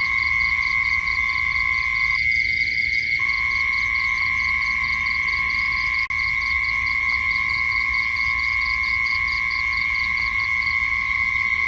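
Night insect chorus: a steady high-pitched drone with a rapid, even pulsing chirp above it, and a brief drop-out about six seconds in.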